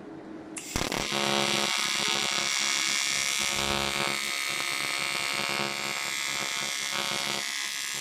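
AC TIG (argon arc) welding arc on an aluminium steering knuckle, striking with a sharp crack about a second in and then buzzing steadily while tack welds are laid.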